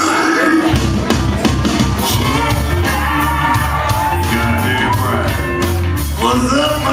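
Live rock band playing: a bass line comes in about a second in under drum hits, with a voice singing and shouting over it.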